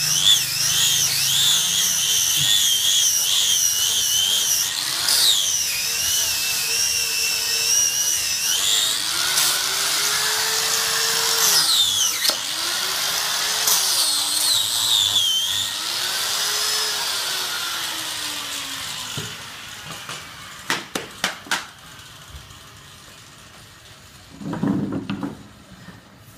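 Angle grinder grinding a wooden root stump, its motor whine dipping and recovering in pitch as the disc is pressed into the wood. The grinding fades out about two-thirds of the way through, and a few sharp clicks follow.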